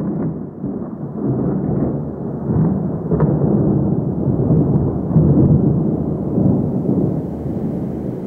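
Thunder rolling: a long, low rumble that comes in suddenly, then swells and eases in several waves.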